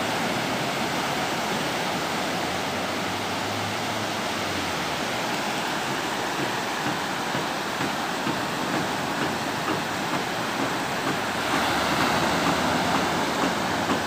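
Strong surf breaking and washing up a sandy beach: a steady rush of waves that grows a little louder near the end.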